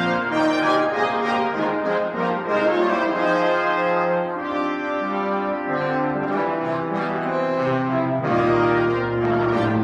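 Brass ensemble playing a fanfare: several parts holding overlapping notes that change every second or so, with a fuller chord entering about eight seconds in.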